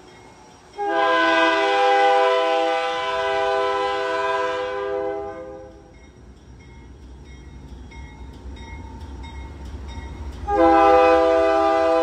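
Diesel freight locomotive's air horn sounding for a grade crossing: a long blast of several tones at once, then a second blast starting near the end. Between the blasts the locomotive's low engine rumble grows as the lead unit reaches the crossing.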